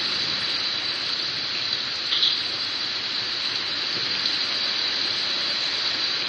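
Heavy rain pouring steadily, an even hiss, with one brief tap about two seconds in.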